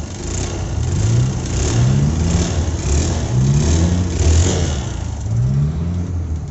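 Honda Livo's single-cylinder four-stroke engine being revved in short repeated throttle blips, about one a second, dropping back between them. The 'ting ting' noise the owner is chasing rides along with it; he suspects it comes from inside the top end and means to open the head to check the piston.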